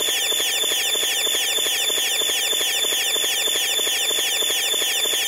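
Electronic noise music: a machine-like loop of short sweeping high tones repeating evenly about eight times a second, steady in level.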